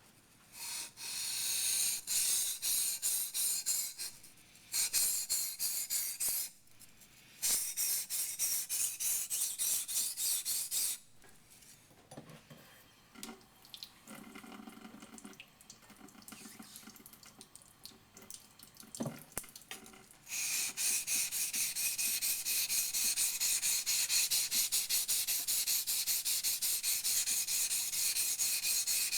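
Yanagi knife blade being ground on a wet 400-grit waterstone: rapid back-and-forth scraping strokes in several runs with short pauses, a quieter stretch in the middle, and a long steady run of strokes in the second half.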